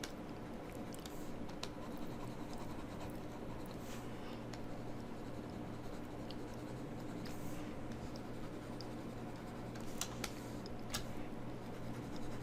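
Stylus scratching and tapping lightly on a graphics tablet as brush strokes are painted, with scattered small ticks over a faint steady hum.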